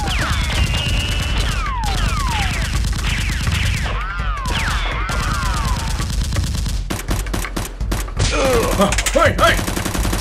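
Gunfire sound effects laid over a toy-blaster fight: rapid bursts of shots mixed with whistling sweeps that fall in pitch, like rounds whizzing past. The shots come thickest near the end.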